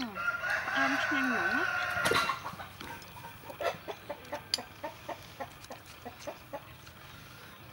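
A rooster crowing once, one long call of about two seconds that ends abruptly, followed by a run of faint clicks about three a second.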